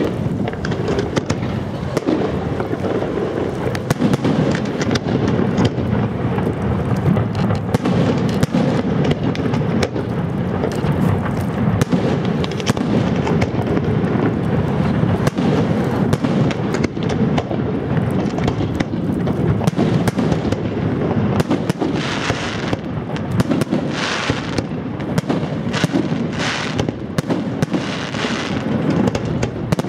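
Fireworks display: a dense, continuous rumble of bangs and crackling. From about two-thirds of the way through, several bursts of hissing rise over it.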